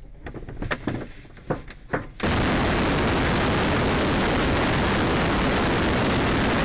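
A few faint clicks and knocks in the glider's cockpit. About two seconds in, this cuts suddenly to a loud, steady rush of wind buffeting a camera mounted outside on the glider's tail as it takes off under aerotow.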